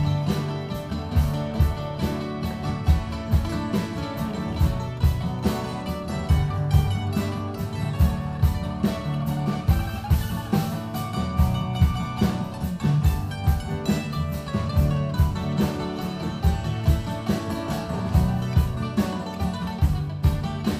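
Live acoustic band playing an instrumental passage: strummed acoustic guitars and a picked mandolin over a steady drum beat.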